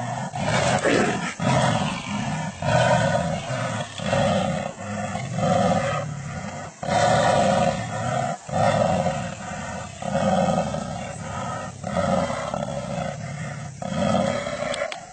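Jaguars fighting, calling in repeated loud roaring bursts, a new burst every second or so.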